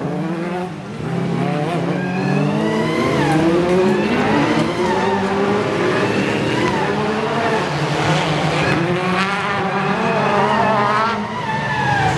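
Autocross race car engines revving hard, their pitch climbing and dropping again and again through gear changes and corners, with more than one car running at once.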